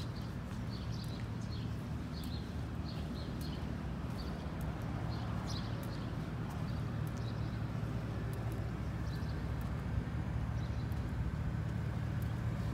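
Steady low rumble of city street traffic, with the walker's footsteps tapping lightly on the concrete sidewalk.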